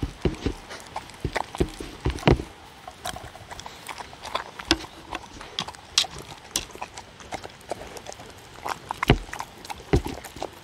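Dogs eating from wooden bowls close to the microphone: irregular clicks and smacks of chewing and licking, with bowls and paws knocking on the wooden tabletop, and a few louder knocks about two seconds in and near the end.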